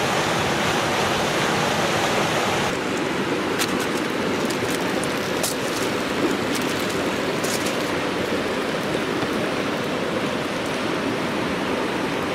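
River water rushing steadily over rocky rapids, with a few light clicks in the middle.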